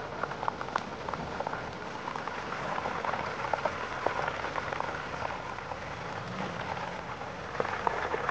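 Hot oil sizzling around a whole chicken deep-frying in a pan: a steady hiss full of small crackling pops.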